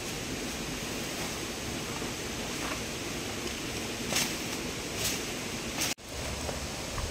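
Steady rushing outdoor noise with three short, sharp crackles in the second half, and a brief cut-out of all sound about six seconds in.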